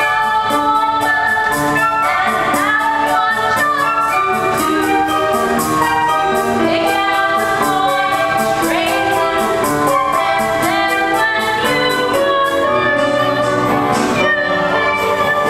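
A woman's solo voice singing a song from a stage musical over instrumental accompaniment with a steady beat.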